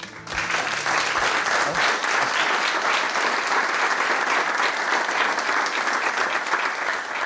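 An audience applauding, dense clapping from many hands that starts right away and eases off near the end.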